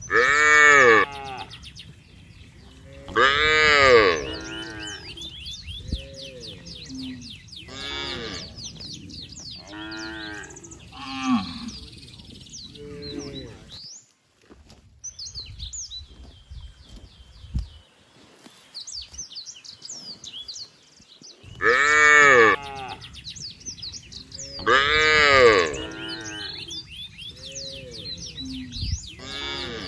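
Cows mooing, long calls every few seconds, the loudest near the start and again about two-thirds of the way through, with a quieter spell between.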